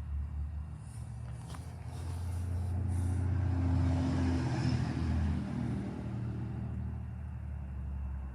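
Low engine hum with a steady pitch that swells louder through the middle and eases off again, then stops abruptly near the end.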